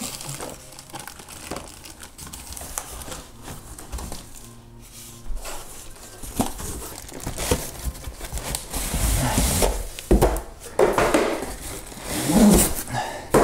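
Cardboard box and packaging being handled: rustling and crinkling with scattered knocks, getting louder and busier in the second half.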